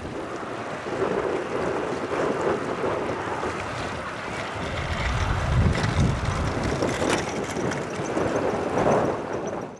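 Wind buffeting the microphone in gusts, with a heavier low rumbling gust about five to seven seconds in.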